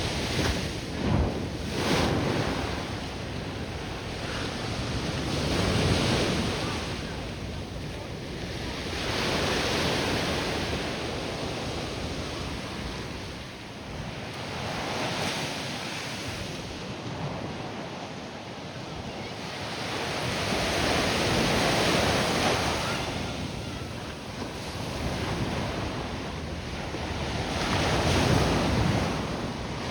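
Ocean surf breaking on a sandy beach, a steady wash that swells and fades in slow surges every few seconds. Wind buffets the microphone now and then, with a few low thumps near the start.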